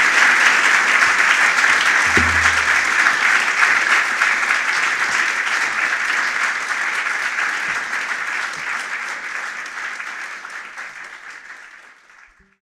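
Concert audience applauding, the clapping dying away steadily over the last few seconds until it stops just before the end.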